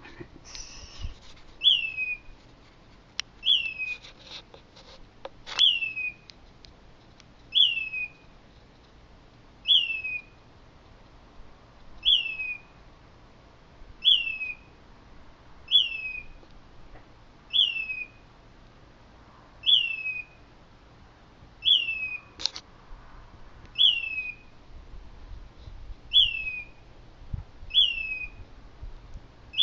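A bird calling a single short, falling whistled note over and over, about once every two seconds, at a steady pace. A few sharp clicks fall between the calls.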